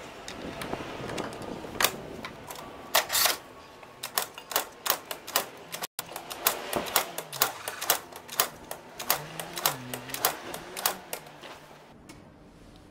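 Piaggio Fly 125 scooter being kick-started over and over: a run of sharp mechanical clacks and rattles from the kick-start lever and gear as the engine is turned over without firing. The clacking stops near the end.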